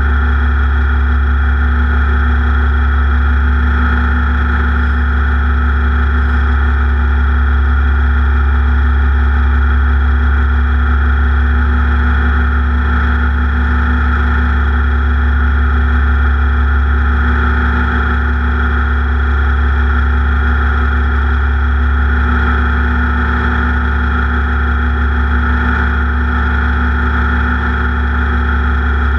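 Race vehicle's engine running at a steady, unchanging speed, with a strong low rumble.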